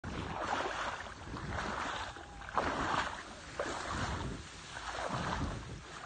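Wind on the microphone and rustling rice stalks, swishing in swells about once a second.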